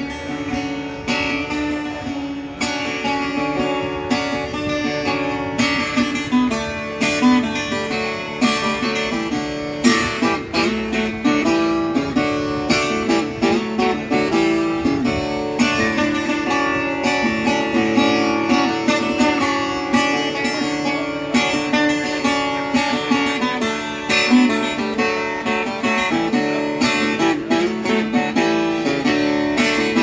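Viola caipira, the Brazilian ten-string folk guitar, played solo as a picked and strummed instrumental introduction, with a steady flow of notes.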